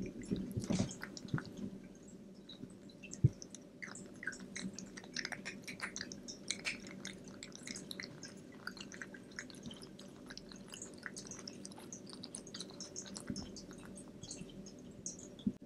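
A Minuet kitten eating dry kibble from a ceramic bowl: a steady run of small, irregular crunching and clicking chews, with one louder click about three seconds in.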